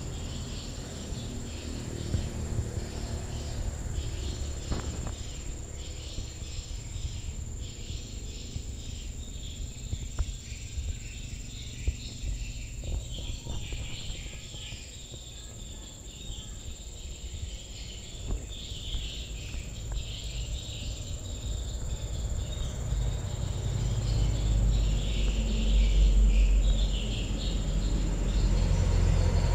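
Insects calling steadily in the trees, a high steady tone with a flickering chorus of calls beneath it. A low rumble grows louder over the last several seconds.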